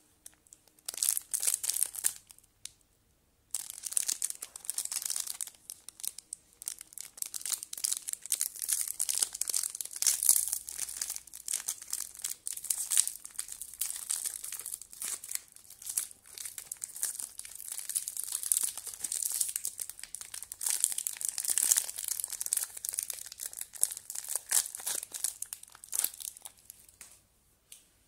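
Plastic snack wrapper crinkling and tearing as it is peeled open by hand, a dense run of sharp crackles with a brief pause about three seconds in.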